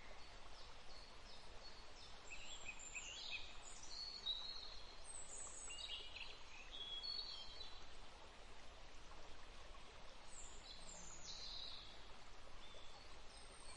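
Faint outdoor ambience: birds chirping in many short, high calls over a steady soft hiss.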